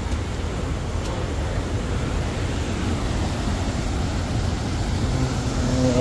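Steady rushing rumble of a fast mountain stream pouring white over rocks into a pool.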